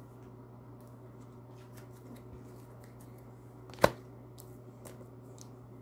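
Oracle cards being handled on a glossy tabletop: a few faint card ticks and one sharp tap a little under four seconds in, over a steady low hum.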